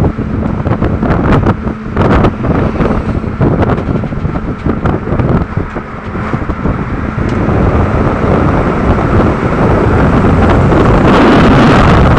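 Wind buffeting a phone's microphone from a moving vehicle, over road noise. It is gusty and crackly at first, then becomes a louder, steadier rush about two-thirds of the way in.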